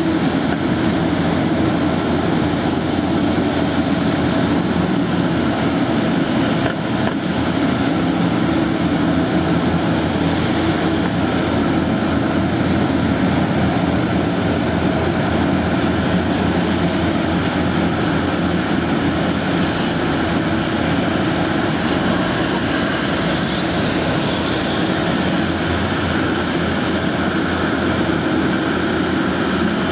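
Scania 94D street-sweeper truck at work: its diesel engine running and its rotating wire gutter brushes scraping dust off the asphalt, in a steady, loud, unchanging noise.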